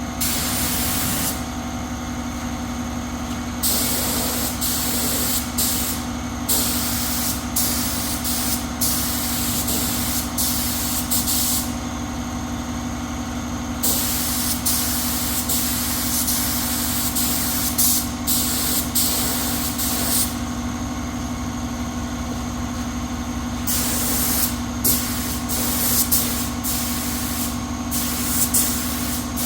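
Compressed-air spray gun hissing in repeated on-off bursts, some brief and some held for two or three seconds, over a steady machine hum.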